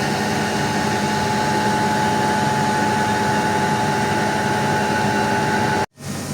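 CNC milling machine running, a steady mechanical noise with a held whine from the spindle. Near the end it cuts off abruptly and a slightly quieter, steady machine sound follows.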